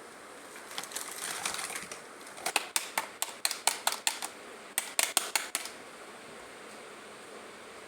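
Small plastic pieces of a miniature toy kitchen set being handled: a short rustle, then two quick runs of sharp clicks and taps.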